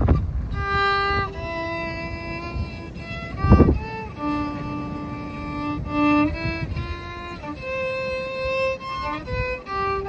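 Violin played by a young child: a slow melody of held bowed notes, one after another. A brief loud rumble cuts in about three and a half seconds in.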